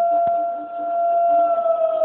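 Emergency alert siren holding a steady tone, then starting to wind down slowly in pitch about one and a half seconds in. Two sharp clicks come near the start.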